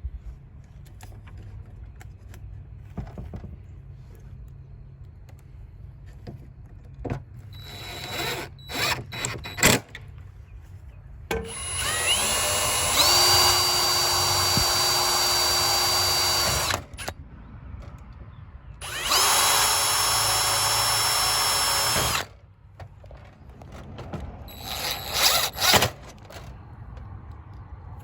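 Power drill with a 1/8 inch bit drilling holes into an RV screen door: two long steady runs, each rising in pitch as the motor spins up, with short bursts of the drill before and after them.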